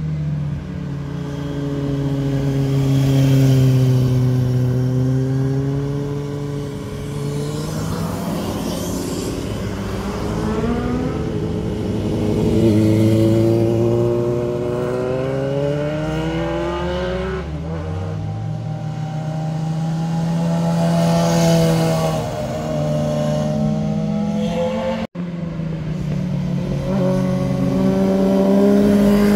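A car and then sport motorcycles take a hairpin bend one after another, engines revving up and falling away as each passes. The sound breaks off for an instant near the end at a cut.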